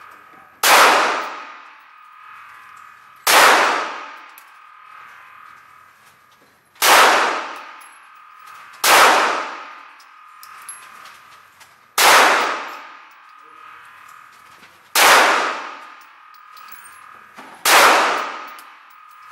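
Glock 17 9mm pistol fired slowly, seven single shots about two to three and a half seconds apart. Each shot rings and echoes off the hard walls of an indoor range before dying away.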